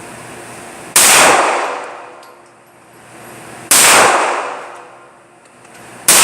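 Three single gunshots about two and a half seconds apart, the last one at the very end. Each shot rings out in the echo of an indoor range, dying away over more than a second.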